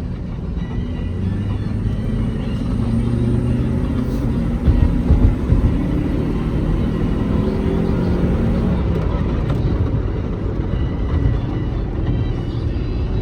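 Honda CR-V's 2.4-litre K24A1 four-cylinder engine pulling under acceleration, its note rising over the first few seconds, then running steadily with road noise and a few low thumps about five seconds in. No stumble or cut-out is heard, a sign that the VTEC system is working and the car is not in limp mode.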